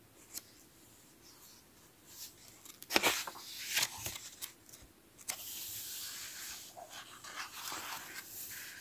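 Paper pages of a printed photo book being handled and turned: a couple of sharp crackles about three seconds in, then a few seconds of steady paper rustle as the pages are leafed through, which stops near the end.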